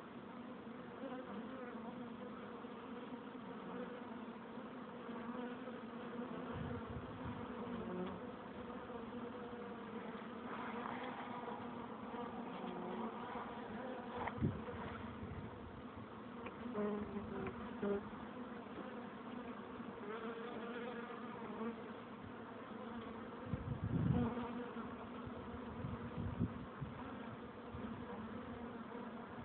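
Honeybees buzzing at the entrance of their hive, many wings together making a steady hum that swells louder now and then.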